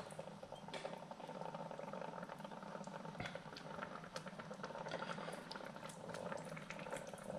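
Thick tomato-and-zucchini salsa cooking in a stainless-steel pot and being stirred with a wooden spoon: quiet bubbling and squelching with many small pops.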